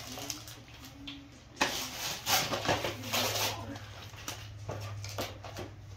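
Wrapping paper being torn and crumpled as a toddler pulls it off a gift box, loudest from about one and a half to three and a half seconds in, with a few shorter rustles after.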